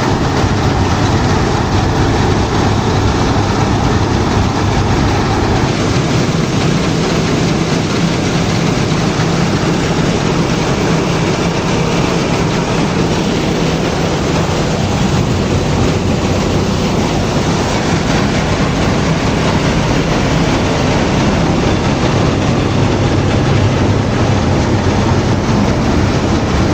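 Wheat threshing machine running steadily: a constant low engine drone under a dense, even mechanical noise.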